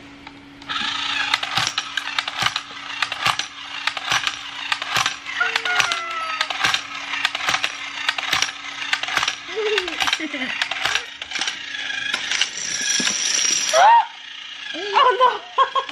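Battery-powered toy domino train running along a wooden floor, dropping plastic dominoes one after another in a rapid stream of small clicks that stops about fourteen seconds in.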